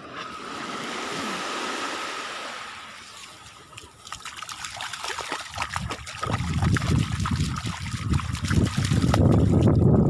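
Shallow seawater trickling and washing over sand. From about four seconds in comes a run of small splashes from a dog's paws in the shallows. From about six seconds a loud low wind rumble on the microphone builds over it.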